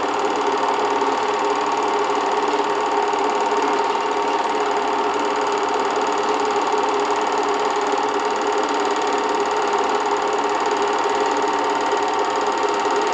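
8mm film projector running with a steady mechanical whirr and fast, even clatter of the film advancing.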